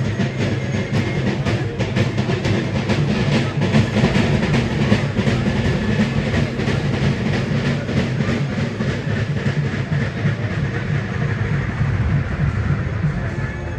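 Fireworks of a Kerala vedikettu display going off in a dense, unbroken rapid-fire run of bangs and crackles, steady in loudness throughout.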